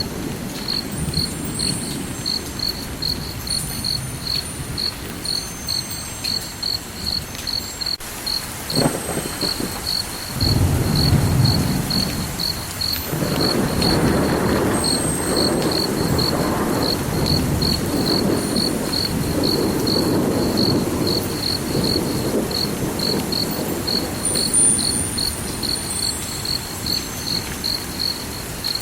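A cricket chirping steadily, about two chirps a second. From about nine seconds in, a deep rumbling swells up underneath it and carries on.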